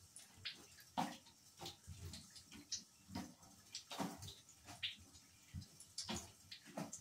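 Bare feet treading on chunks of wet slime on a bathtub floor: irregular wet squelches and slaps, one or two a second, the loudest about a second in.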